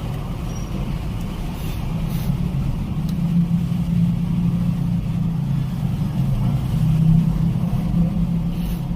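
Steady low rumble, growing a little louder in the middle and easing near the end.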